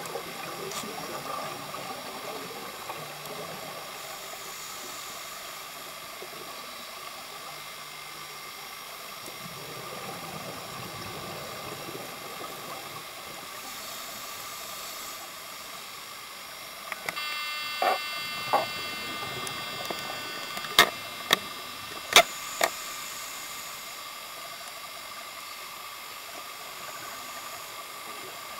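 Underwater sound picked up through a camcorder housing: a steady hiss with a thin high whine, and bubbly stretches from scuba divers' exhaled bubbles. About two-thirds through there is a short cluster of sharp clicks and knocks.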